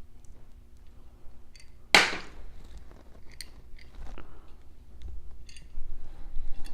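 Small clicks and rattles of metal screws and T-nuts being handled and fitted through the holes of 3D printer parts during assembly, with one sharp clack about two seconds in.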